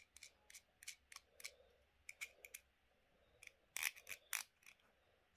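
Plastic fidget pad worked with the fingers: an irregular string of small clicks, louder around four seconds in.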